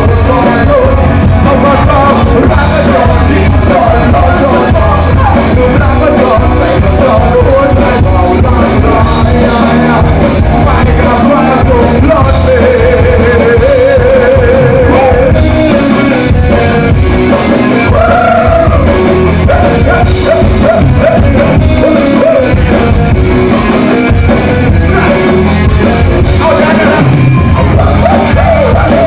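Live rock band playing loud: a singer over electric guitars, bass and drums.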